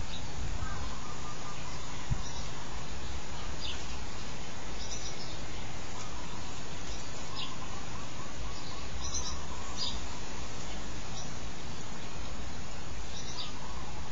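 Short high bird chirps, scattered every second or two, over a steady low outdoor rumble.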